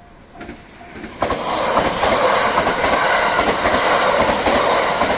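Level-crossing warning bell ringing about three times a second. A little over a second in, a limited express train passes through the crossing close by with a loud rush and the rhythmic clickety-clack of its wheels over the rail joints, drowning out the bell.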